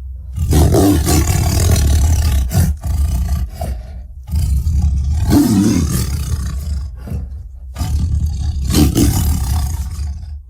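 Giganotosaurus roar sound effect: three long, deep, rough roars one after another, the first about half a second in, the second about four seconds in and the third near the end.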